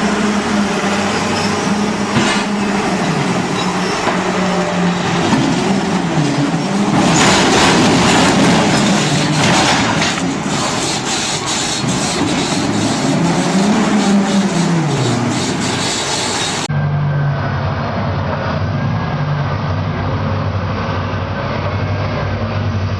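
Rope shovel working in a mine, its machinery drone rising and falling in pitch as it digs and swings, with a burst of rock clattering about seven seconds in. About seventeen seconds in it cuts to the steadier engine drone of a large excavator loading a haul truck.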